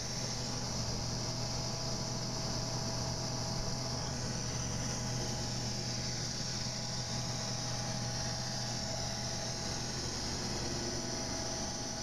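Neato Robotics XV11 robot vacuum running on carpet, its vacuum motor giving a steady whir: a low hum under an even, high hiss.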